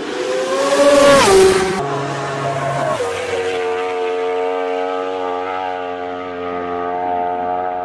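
A racing motorcycle passes at full speed, the loudest moment, its engine note dropping sharply as it goes by about a second in. Then a racing motorcycle engine screams at high revs, holding a near-steady high pitch as the bike sweeps through a bend.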